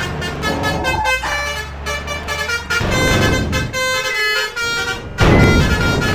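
Several telolet-style Basuri musical horns on convoy vehicles, playing quick tunes of stepped notes that overlap, over engine rumble. A louder, denser burst of horns and engine noise comes in about five seconds in.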